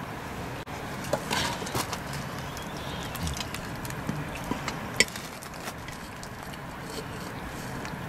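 A spoon clinking and scraping against a metal pot and plate while eating, a handful of short sharp clinks with the sharpest about five seconds in, over a steady background hiss.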